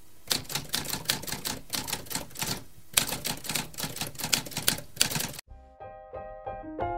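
Typewriter keys clacking in quick runs, with a brief pause about three seconds in. The clacking stops abruptly after about five seconds, and a light piano-like melody starts.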